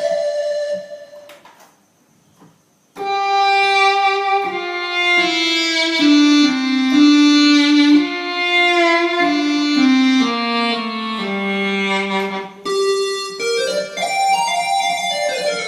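Korg electronic keyboard playing a solo melody in a sustained, violin-like lead voice, with gliding pitch bends between notes. It stops about a second and a half in and starts again about three seconds in.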